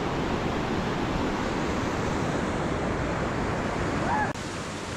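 Fast mountain stream rushing over boulders: a steady, dense rush of water that drops a little in level about four seconds in.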